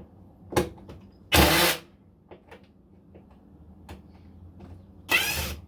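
Cordless impact driver run in two short bursts to back out screws from a washing machine's motor area, with small clicks and taps of the tool and screws being handled between the bursts.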